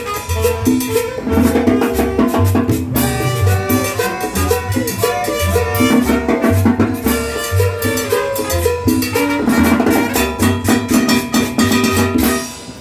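Upbeat Latin tropical dance music, salsa-style, with a pulsing bass line, drums and percussion; it breaks off near the end.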